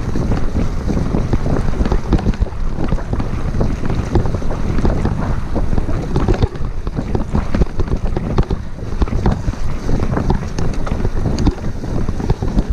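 Wind buffeting the action camera's microphone over the steady rumble of a Specialized Diverge gravel bike's tyres on a rough, muddy dirt track, with frequent knocks and rattles from the bike jolting over bumps.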